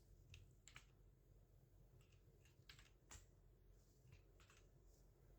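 Faint, scattered key presses on the Aukey KMG14 mechanical keyboard with Aukey's own red switches: single clicks a half-second to a second apart, as the function keys are pressed to switch RGB lighting modes.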